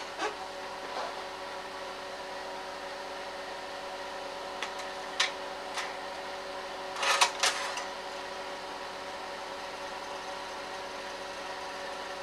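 A projector running with a steady mechanical hum made of several even tones, with a few short sharp clicks, the loudest pair about seven seconds in.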